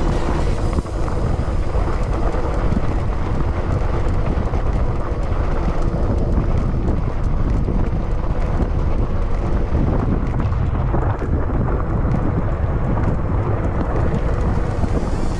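Wind buffeting the microphone on a mountain bike riding a dry dirt singletrack, with the rolling rumble of the tyres and scattered small clicks and rattles from the bike and gravel.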